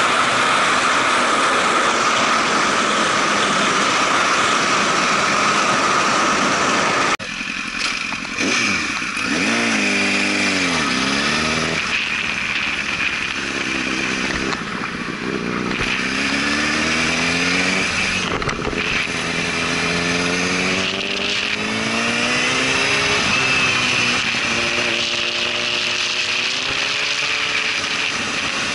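Honda CBR1000RR Fireblade inline-four motorcycle engine heard under heavy wind noise rushing past the microphone at speed. About seven seconds in the wind noise drops away suddenly, the engine winds down in pitch, and then it rises and falls again and again as the rider works through the gears while slowing and pulling away.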